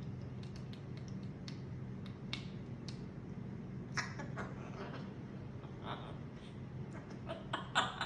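African grey parrot making a series of sharp clicks, then short vocal sounds from about four seconds in and a quick run of them near the end, over a steady low hum.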